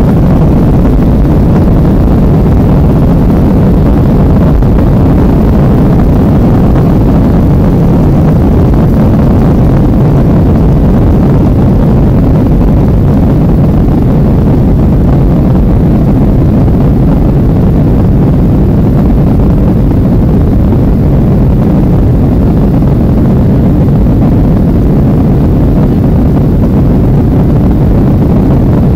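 Jet airliner at take-off thrust heard from inside the passenger cabin: a loud, steady low rumble as the plane finishes its runway roll, lifts off and climbs.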